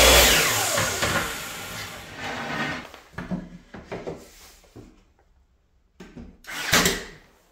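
Electric miter saw finishing a cut through a wooden trim board, then its blade spinning down, the whine falling in pitch and fading over about two seconds. After that come a few light knocks of the board being handled, and a brief louder noise near the end.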